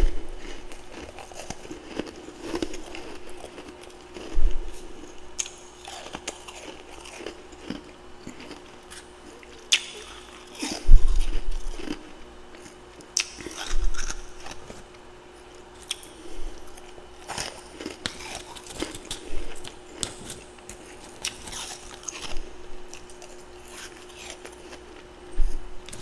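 Freezer frost being bitten and chewed up close: crisp, icy crunches at irregular intervals, the loudest about eleven seconds in. A faint steady hum runs underneath.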